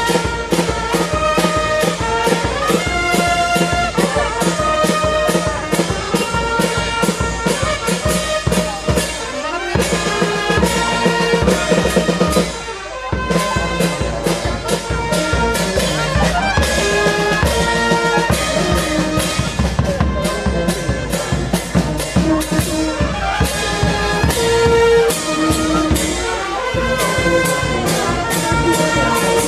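Street brass band playing a march tune, trombones and other brass carrying the melody over a steady drum beat, with a short break about thirteen seconds in.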